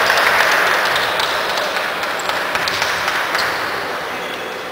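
Crowd noise from spectators in a basketball arena, loudest at the start and slowly dying away.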